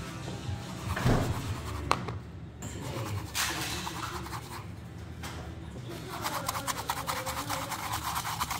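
Granulated sugar rubbing and rasping as mango coconut yema balls are rolled in it in a plastic bowl. It turns into a fast gritty rattle in the last couple of seconds, as the bowl is swirled to coat several balls at once.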